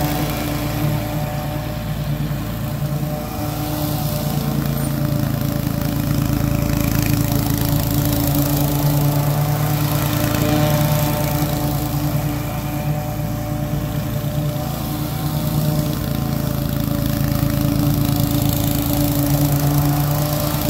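Toro TimeMaster 30-inch walk-behind mower's engine running steadily, its pitch holding level throughout.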